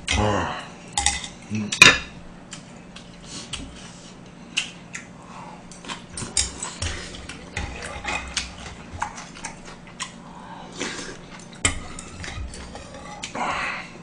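A metal spoon clinking and scraping against a black earthenware bowl while scooping up soup and rice, in many short, sharp clicks, with the loudest clank about two seconds in.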